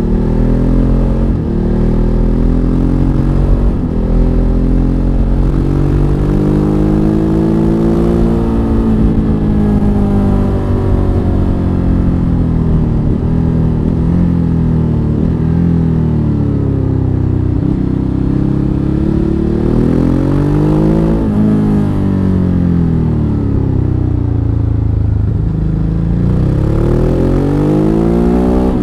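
Ducati Hypermotard 939's 937 cc L-twin engine running under way, its pitch climbing under acceleration and falling as the throttle is eased, several times over. A low wind rumble on the microphone sits underneath.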